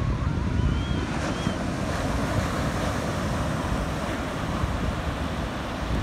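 Ocean surf washing onto a sandy beach with wind buffeting the microphone, a steady rushing noise with gusty low rumble.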